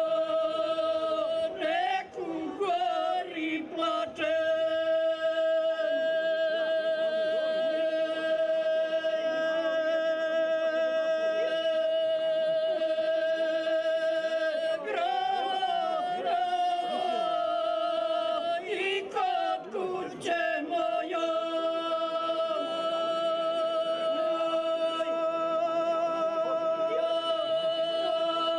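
Two women singing izvika, a traditional Serbian unaccompanied song in two voices. The notes are held long and steady, broken by short wavering ornaments about 2, 15 and 20 seconds in.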